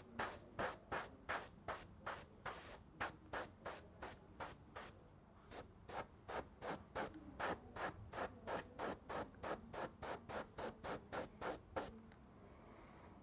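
Gravity-feed airbrush spraying in short, quick bursts of air hiss, about three a second, as the trigger is pulsed. There is a brief pause about five seconds in, and the bursts stop about twelve seconds in.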